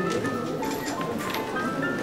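Background music: a light melody of short, high notes stepping up and down in pitch.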